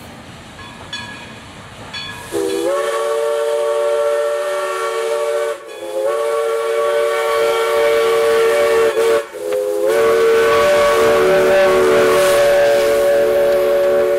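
Steam whistle of East Broad Top #15, a 2-8-2 Mikado steam locomotive, sounding a chord of several tones in three long blasts. Each blast slides briefly up in pitch as it opens, and the third is still sounding at the end.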